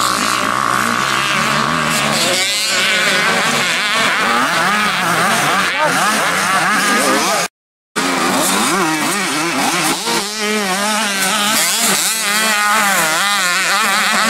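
Mini motocross bike engines revving hard, their pitch rising and falling as riders accelerate and back off, with several bikes overlapping at times. The sound cuts out briefly about seven and a half seconds in.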